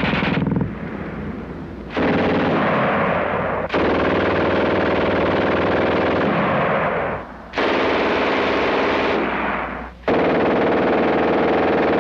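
Long bursts of very rapid automatic machine-gun fire, in several spliced clips that cut abruptly from one to the next.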